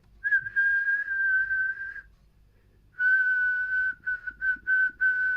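A person whistling a steady note into a CB radio microphone while transmitting on lower sideband, the usual way to drive an SSB transmitter for a power check. One long note, a pause of about a second, then a second note broken into a few short blips before running on.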